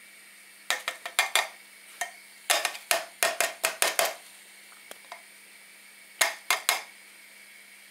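Sharp metallic clinks and taps as the soldering station's small metal tip-cleaner tub is handled: a few near the start, a quick run of about ten in the middle, and three more near the end.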